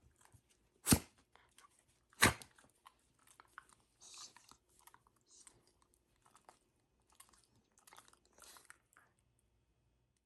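Shiba Inu snorting sharply through its nose, twice, about one and two seconds in, then a run of fainter snuffling and mouth noises. The dog's face is itching from loose fur.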